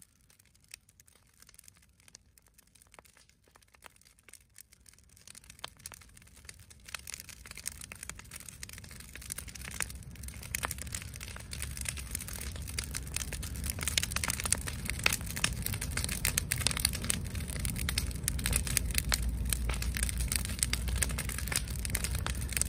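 Wood bonfire crackling and popping in dense, irregular clicks over a low rumble. It starts faint, swells over the first dozen seconds and then holds loud.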